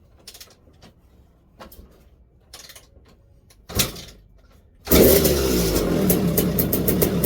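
2002 Suzuki RM250 two-stroke engine being kick-started. There are light clicks, then a thump about four seconds in. A second later the engine fires and keeps running loud. It runs now that the stator is connected and it has spark.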